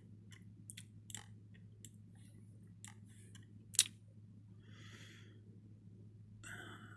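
Scattered soft clicks and taps from computer use, mouse and keys, with one sharper click about four seconds in and a brief soft rustle just before five seconds, over a steady low electrical hum.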